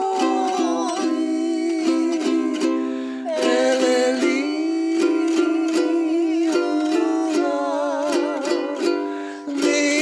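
A man and a woman singing a song together to a strummed ukulele, their held notes wavering over steady strumming.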